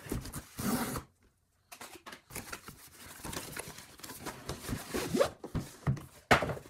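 Cardboard packaging being opened by hand: flaps scraping and rubbing, and the box being slid off the carrying case inside, with a short pause about a second in and one sharp knock near the end.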